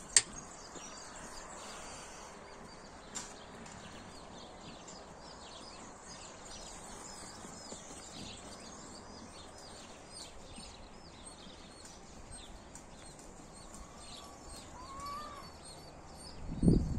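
Small birds chirping over and over in the background against steady outdoor noise. There is a sharp click near the start and a louder low burst at the very end.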